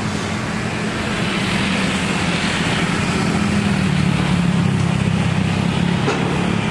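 Boeing 777-300ER's GE90-115B turbofan engines running at taxi power as the jet taxis, a steady jet rumble with a low hum that grows a little louder.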